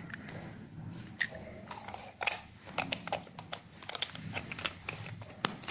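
Handling noise from a small telescope eyepiece being turned over in the hand: scattered light clicks and taps, about ten of them, at irregular intervals.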